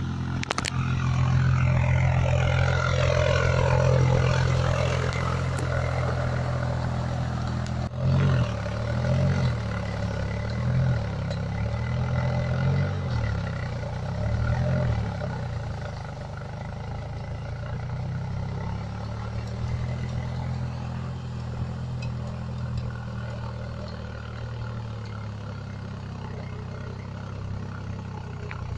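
Swaraj 735 tractor's three-cylinder diesel engine working in deep mud, running hard at first, then revving up and down about five times, then settling to a steadier, lower run.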